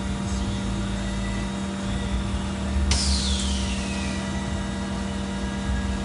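Rotary high-frequency welding and cutting machine running with a steady hum and low rumble. About three seconds in a sudden hiss starts, falling in pitch as it fades over about a second.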